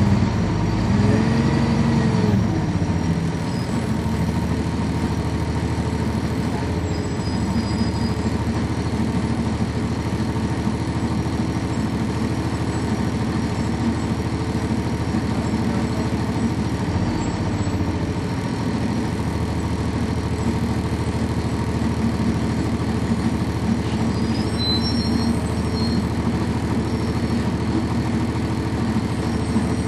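Cummins ISC diesel engine of a 1999 NovaBus RTS heard from on board, with a ZF Ecomat automatic transmission. Engine pitch rises and falls in the first few seconds, then the engine runs steadily with the bus under way.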